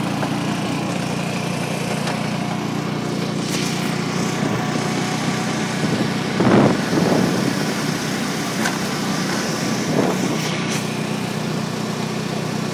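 John Deere Gator utility vehicle's small engine running steadily while driving along a road, with road and wind noise. The noise swells louder twice, about six and a half and ten seconds in.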